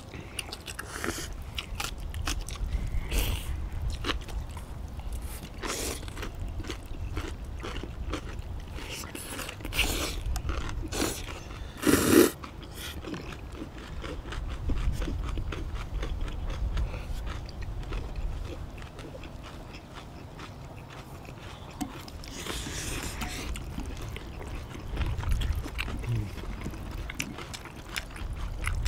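People eating noodles in broth and kimchi: irregular short slurps of thin noodles and chewing, with one louder slurp about twelve seconds in.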